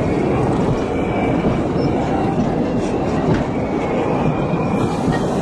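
Narrow-gauge passenger coaches rolling past close by, their wheels running steadily over the rails.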